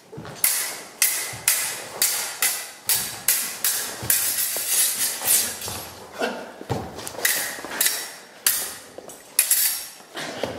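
Steel stage-fencing swords clashing in a fast exchange: a string of sharp metallic strikes, roughly two a second, each with a brief ring. Thuds of footwork on a wooden floor are mixed in.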